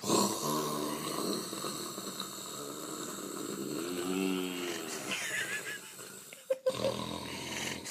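A person snoring heavily, about three long drawn-out snores.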